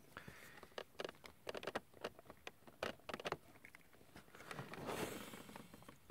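Small plastic clicks and taps as hands handle and fit armour parts onto a plastic action figure, many sharp ticks in the first three seconds, then a short rustle about five seconds in.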